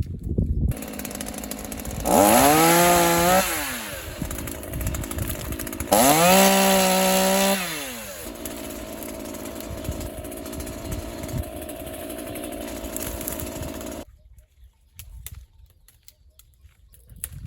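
Stihl MS 212 two-stroke petrol chainsaw running at idle and revved up to full speed twice, each time for about a second and a half. It stops abruptly near the end.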